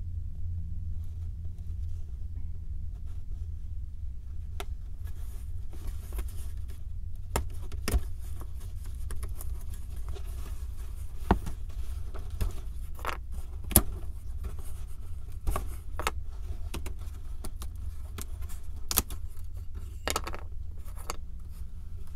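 Hands handling and fitting together small 3D puzzle pieces: scattered light clicks and taps with soft scraping, over a steady low hum.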